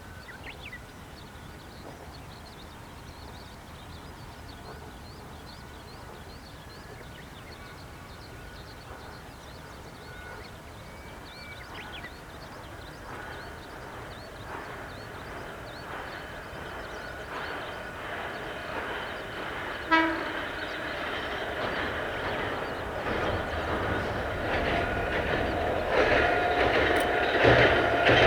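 An Ohmi Railway electric train approaches, its running noise growing steadily louder. It sounds one short horn blast about two-thirds of the way through, and wheel clatter on the rails builds up near the end.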